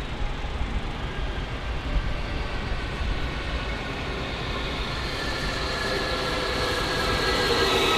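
A train approaching on the station tracks over a steady low rumble, growing louder through the second half, with several high steady whining tones building from about five seconds in.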